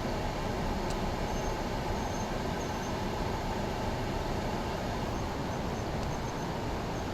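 Steady low rumbling background noise, the kind PANN files under vehicles, with faint short high chirps now and then.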